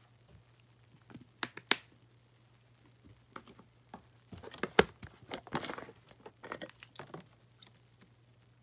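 Plastic soap bottles handled between squeezes: a few sharp clicks about a second and a half in, then a spell of crinkling and tapping of plastic from about four to seven seconds in.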